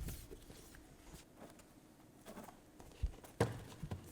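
A few scattered light knocks and clicks from steel frame parts being handled during assembly, the sharpest about three and a half seconds in.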